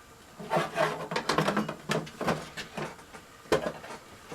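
Hard plastic parts rubbing and knocking together as a filament spool holder is slid into its hole on a 3D printer, with a sharp click about three and a half seconds in.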